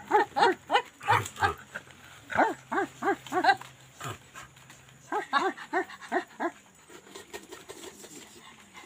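A person's short, high, animal-like yelping calls, in three quick runs of four to six at about three a second, trailing off near the end.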